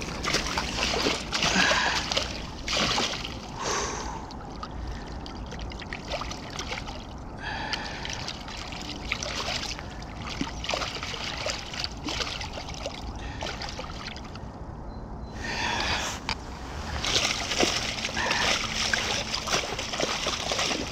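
Irregular splashing and sloshing of stream water in uneven bursts, heavier in the first few seconds and again near the end.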